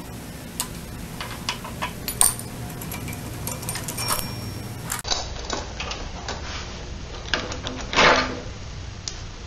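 Metal clinks and rattles of a roller chain being handled off a centrifugal clutch's sprocket, then a louder scraping clatter about eight seconds in as the Max Torque centrifugal clutch is pulled off the engine's crankshaft.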